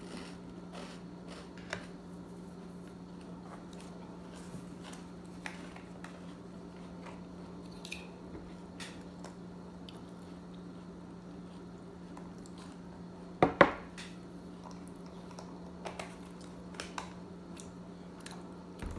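Eating a meal at a table: scattered small clicks of cutlery and dishes, with chewing, and two louder knocks in quick succession about two-thirds of the way through. A steady low hum runs underneath.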